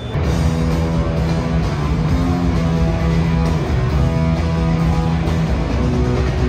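Heavy rock band playing live, electric guitars and drums, starting abruptly about a fifth of a second in.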